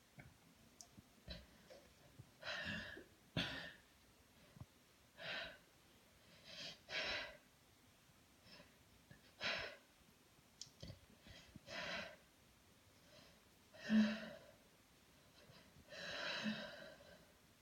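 A woman's short, noisy breaths, one every second or two. A louder, sharper one comes about fourteen seconds in, and a longer one near the end.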